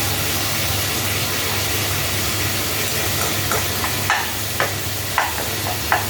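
Ginger, garlic and tomato sizzling steadily as they sauté in a pan. From about halfway through, a spatula stirs and scrapes in short strokes about every half second.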